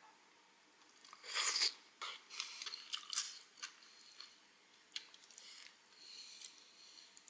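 Close-up chewing and crunching of pieces of chicken. The loudest crunch comes a little over a second in, followed by a run of sharp, clicky bites and chews that grow fainter.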